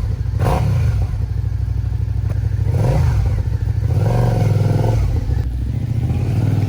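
Suzuki SFV650's V-twin engine running, its revs rising and falling several times, most strongly a few seconds in.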